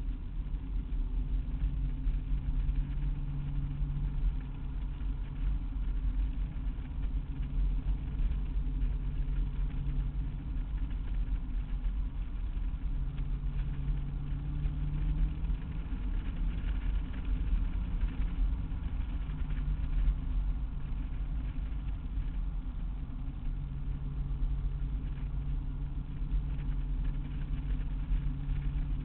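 Car engine running while driving, with steady low road and tyre rumble, heard from inside the cabin; the engine note swells and eases several times as the throttle changes.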